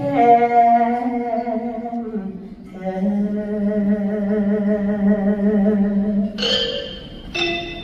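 A singer holds two long notes with vibrato, in a Thai classical duet sung to orchestral accompaniment. A brighter, higher-pitched sound enters about six seconds in.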